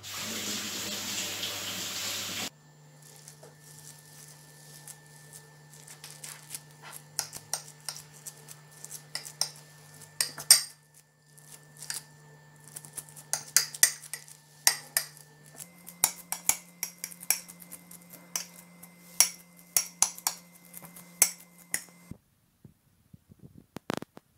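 Metal spoon clinking and scraping against a ceramic bowl as cooked rice is scooped out, in many short sharp clicks over a low steady hum. It opens with about two and a half seconds of loud, steady rushing noise.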